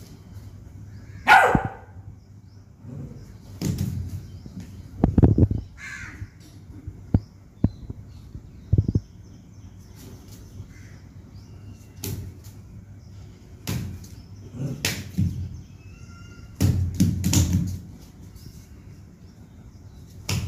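Beagle puppy giving short play barks a few times, asking to be played with, among scattered knocks and thumps on a tiled floor.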